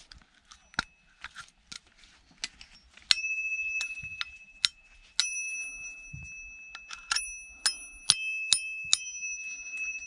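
Small metal bell being handled and rung: light clicks and taps at first, then a strike about three seconds in, another about five seconds in, and several quick strikes near the end, each leaving a clear, high, lingering ring.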